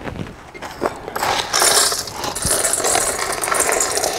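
Salt poured and scattered from a plastic bowl onto the ice packed around a steel bowl in a metal basin, to chill an ice-cream mixture. A gritty, rattling hiss of grains on ice and metal starts about a second in and keeps going.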